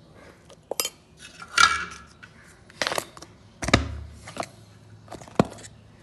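A metal spoon clinking and scraping against a glass jar as powdered chai masala is spooned in, with about half a dozen sharp clinks and knocks and a short scrape about one and a half seconds in.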